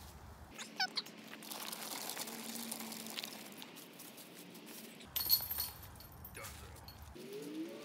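Footsteps crunching through dry fallen leaves. A bird chirps about a second in, a short sharp metallic clatter comes just after five seconds in, and a dove-like cooing call begins near the end.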